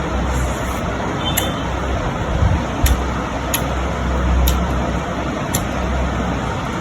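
Close-up eating sounds: sharp wet clicks and smacks of a mouth chewing, about one every half second to a second, over a steady low rumble.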